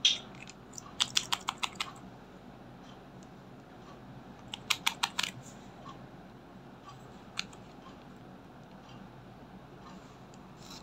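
Light, rapid clicking from a small glass nail polish bottle and its cap being handled and opened. There are two quick runs of clicks, about a second in and about five seconds in, and a single click later.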